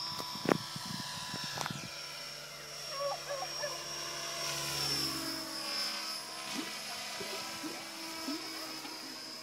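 Radio-controlled Align 550 model helicopter flying overhead: a steady high whine and rotor hum, its pitch sliding as the helicopter passes. A few sharp knocks come in the first two seconds.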